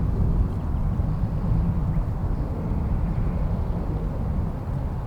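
Wind buffeting the microphone: a steady low rumble with nothing else standing out.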